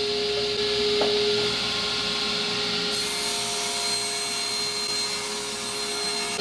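Drill press running steadily with a Wagner safety planer, its rotary cutting head skimming across wood: a constant motor hum under a steady cutting hiss.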